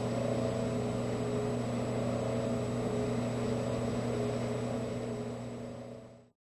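A steady droning hum of several held tones with a thin high whine above them, fading out and stopping abruptly about six seconds in.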